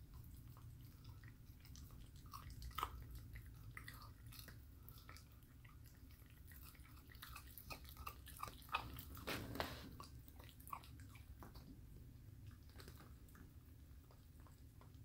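A six-week-old puppy chewing a raw, bone-in chicken wing: faint wet chewing with scattered crunching clicks of bone, busiest about halfway through.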